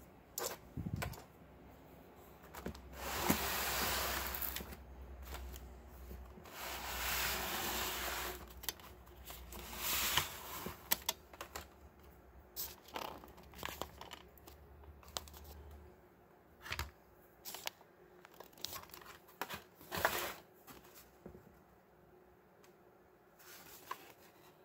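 Hot Wheels blister packs on cardboard backing cards being handled: the plastic and card rustle and crinkle. There are two longer rustling swells in the first third, then many short crinkles and light taps.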